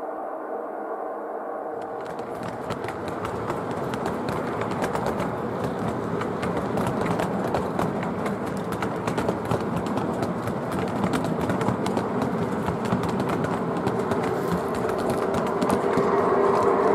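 O gauge three-rail model train approaching, its wheels rolling over the track with rapid fine clicking and a steady hum, growing louder from about two seconds in.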